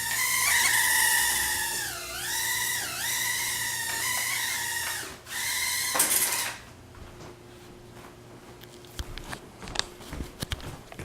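Proton N nano quadcopter's tiny motors whining in flight, the pitch dipping and rising as the throttle changes. About six seconds in there is a knock and the whine cuts off, followed by a few faint clicks and taps.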